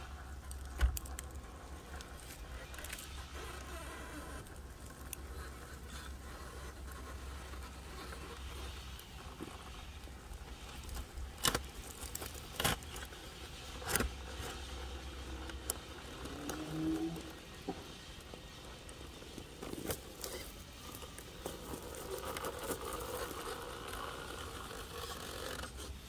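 Axial SCX10.3 RC rock crawler's small electric motor and gearbox whirring as it climbs over rocks, with scattered sharp knocks and scrapes of tires and chassis on stone, the loudest about halfway through. Its transmission gears have been flipped, which the owner thinks has cured the drivetrain's clicking.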